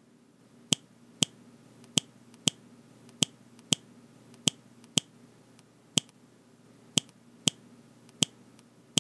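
Footstep sound effect: about a dozen sharp, dry clicks, roughly in pairs half a second apart, over a low steady hum.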